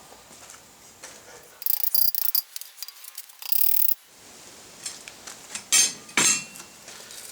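Metal clinking and rattling as a forged steel brush handle is worked tighter onto a wire brush, then two sharp knocks close together about six seconds in.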